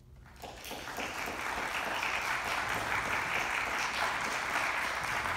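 Audience applauding. The clapping starts about half a second in and builds to steady applause within a couple of seconds.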